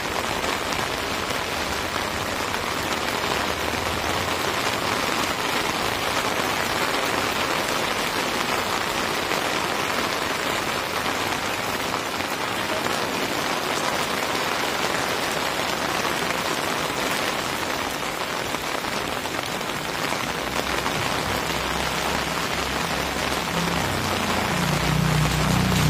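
Steady light rain falling on wet pavement, an even hiss. Near the end a low engine hum grows louder as a motorbike approaches.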